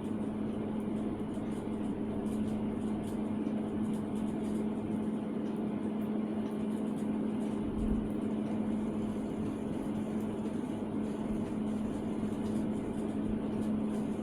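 Small jeweller's soldering torch burning steadily with a small flame, heating a silver piece: an even hiss over a steady low hum.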